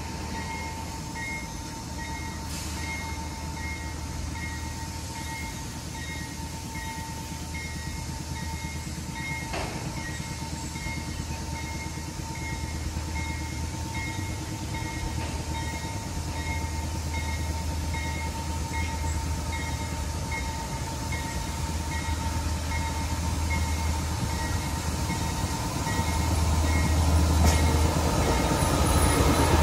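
Grade-crossing signal bell ringing in a steady repeating strike as a diesel passenger train approaches slowly. The train's low engine rumble grows louder throughout, and near the end the cars roll past close by.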